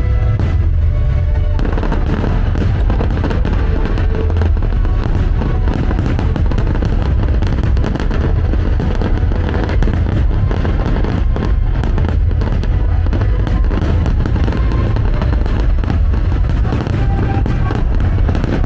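Aerial fireworks bursting in rapid, dense succession with crackling, starting about a second and a half in, over a loud music soundtrack with heavy bass.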